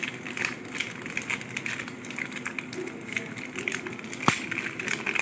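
Chicken cooking in a pot with tomatoes and yogurt, sizzling and crackling steadily over the heat, with one sharp click about four seconds in.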